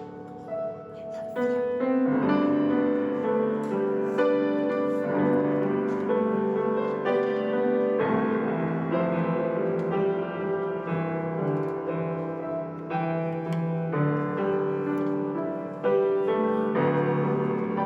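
Solo piano playing a slow, gentle piece, chords and melody notes changing every second or so.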